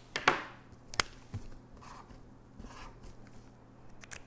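A few sharp clicks and taps of felt-tip markers being uncapped, capped and set down on a tabletop, with faint scratching of a marker drawing on cardboard in between.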